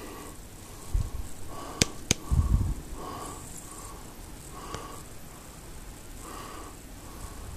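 Handling noise from a phone held against a plastic container: dull bumps about a second in and again near two and a half seconds, with two sharp clicks between them, over a faint hiss that comes and goes.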